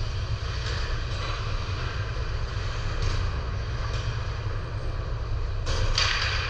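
Steady low rumble under an even hiss of background noise, with a few faint brief noises and a louder rushing burst near the end.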